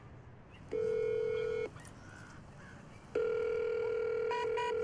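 Gate intercom call box sounding its call tone: a steady electronic buzz-tone lasts about a second, then comes again for nearly two seconds. Three short, higher beeps sound near the end of the second tone.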